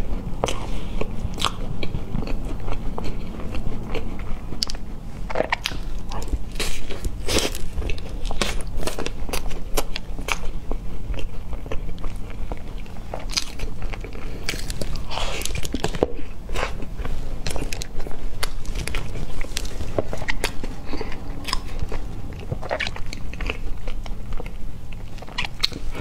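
Close-miked biting and chewing of egg tarts, the crisp pastry shells crunching and crackling in quick, irregular snaps, over a low steady hum.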